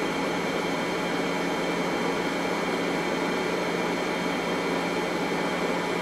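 Electric hand blender running steadily as it grinds sugar into powder in a glass, a continuous motor hum and whir.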